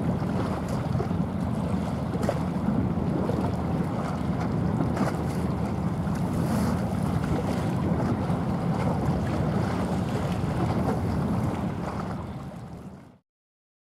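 Steady wind buffeting the microphone over choppy harbour water, a low rumbling noise; it fades out near the end.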